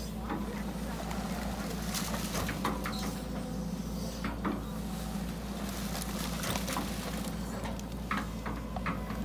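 Hydraulic excavator's diesel engine running steadily, with scattered clicks and clatter over the low engine drone.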